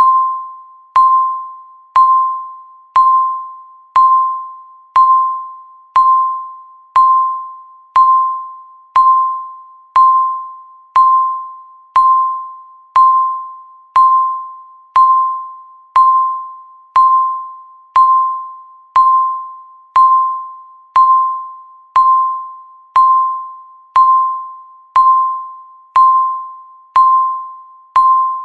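Countdown timer beep: a single electronic tone struck once every second, each fading away before the next, one beep for each second left on the countdown.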